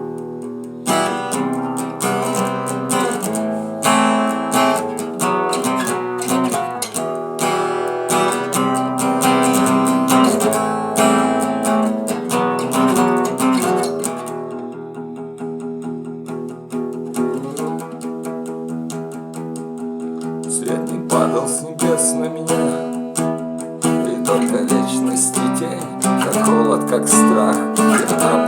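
Acoustic guitar being strummed through an instrumental passage of a song, with no singing. It eases into a softer, thinner stretch about halfway through, then builds back up to fuller strumming.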